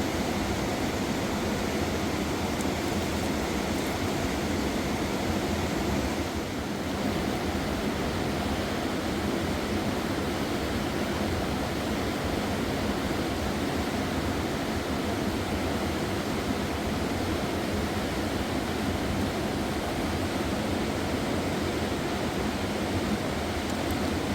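Fast mountain river rushing with a steady roar of water.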